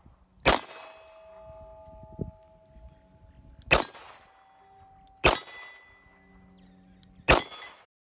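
Four shots from a Smith & Wesson Model 29 .44 Magnum revolver, spaced about one and a half to three seconds apart. Each is followed by the ringing of a struck steel plate target, a sign of a hit.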